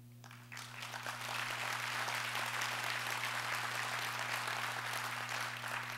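Audience applauding: the clapping starts just after the pause begins, builds over about a second, holds steady, and begins to thin out near the end.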